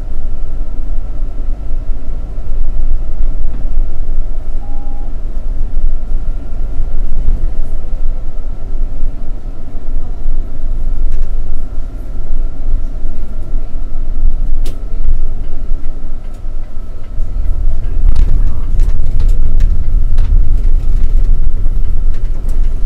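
City bus driving along a road, heard from inside at the front: steady engine and road rumble with a thin steady whine. Scattered rattles and knocks come through, most of them in the last few seconds.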